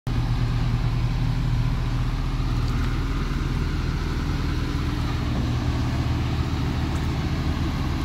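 Heavy diesel tipper truck's engine running steadily at low revs, an even low drone.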